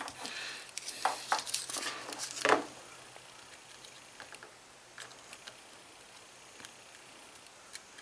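Small handling noises as hands work a soldering iron, wires and a solder spool in a plastic fan switch box: scattered clicks and rustling in the first couple of seconds, then quiet with a few faint ticks.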